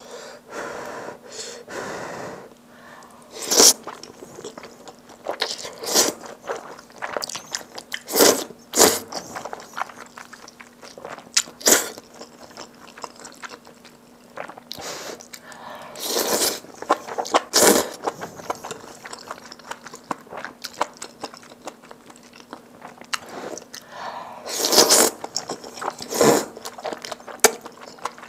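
Close-miked eating sounds: noodles from kimchi stew being slurped and chewed, with sharp wet mouth sounds every second or few. A few longer slurps stand out, and a faint steady hum runs underneath.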